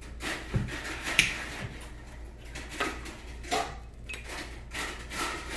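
Small plastic Snapple bottle's cap being twisted open and the bottle handled on a table: a few scattered clicks and knocks, the sharpest about a second in.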